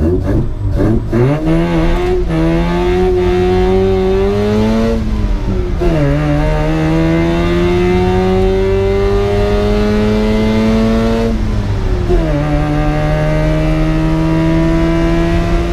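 1975 Mazda Rotary Pickup's rotary engine, heard from inside the cab, pulling through the gears. Its pitch climbs, drops at an upshift about five seconds in, climbs again, drops at a second upshift about eleven seconds in, then holds nearly steady.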